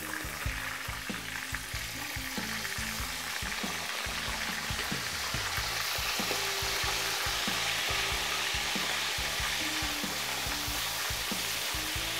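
Bacon rashers sizzling and crackling as they fry in hot oil in a frying pan, the sizzle growing slowly louder as more rashers go in.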